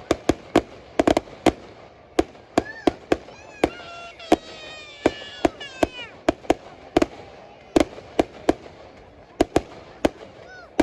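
Aerial fireworks bursting in a rapid, irregular barrage of sharp bangs, about two or three a second. Several high tones rise and fall about four to six seconds in.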